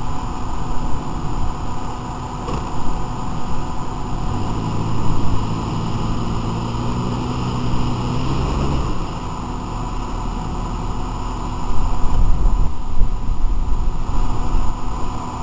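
Off-road 4x4's engine working in four-wheel-drive low range on a steep hill climb. It holds a steady pitch for several seconds through the middle, then gives way to a louder low rumble near the end, over a steady rushing noise.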